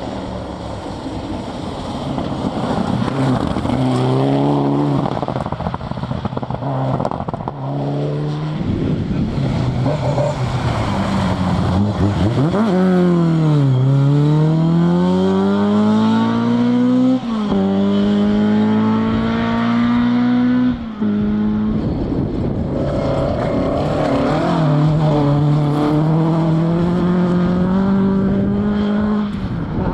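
Rally car engine revving hard and climbing through the gears, the pitch falling sharply at each upshift. Partway through the revs dip deeply, then climb again through further gear changes.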